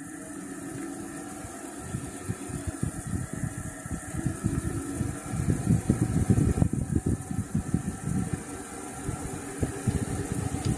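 Wind buffeting the microphone, an irregular gusty rumble that swells and fades.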